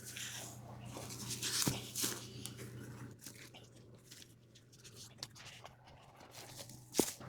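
Low steady hum of an idling tractor engine with rustling handling noise and two sharp knocks, the louder one near the end. The hum fades out about three seconds in and comes back near the end.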